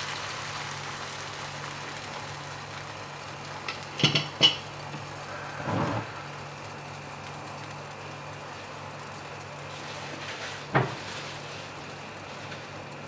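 Egg mixture cooking inside a bread slice in a nonstick frying pan, a faint sizzle over a steady low hum, with a few sharp clicks and knocks of utensils on the pan about four seconds in and once more near eleven seconds.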